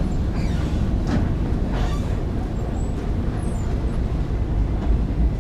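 Steady low rumble of a moving escalator, picked up close to its handrail.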